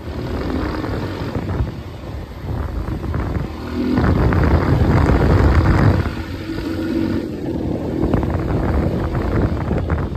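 Italika quad bike's engine running while riding, louder for about two seconds near the middle.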